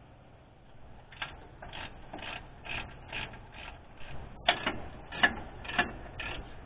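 Ratchet wrench clicking in short rasping strokes, about two a second from a second in, as the bolts of a new water pump are tightened down.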